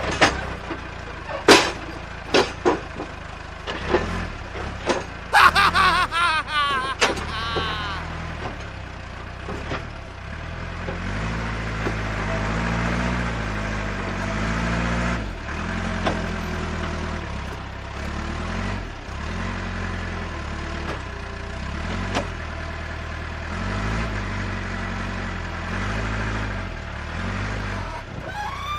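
Radio-controlled construction models working: scattered clicks and knocks over the first several seconds, then a steady motor drone whose pitch rises and falls again and again.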